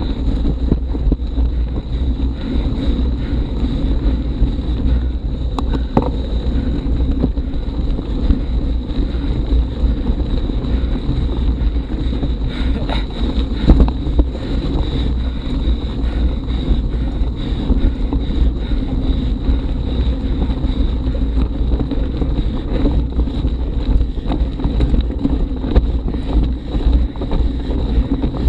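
Steady rumble of wind and handling noise on an action camera's microphone as a mountain bike climbs a steep gravel track at low speed, with scattered knocks and rattles from the rough ground, the loudest about 14 seconds in.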